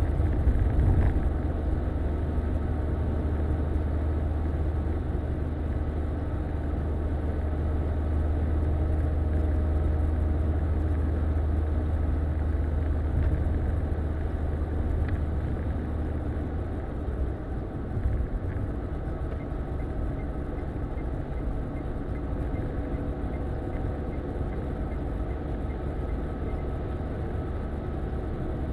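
Cabin noise of a car driving at highway speed: a steady low drone from engine and tyres, which drops a little about two-thirds of the way through, with a single light knock just after.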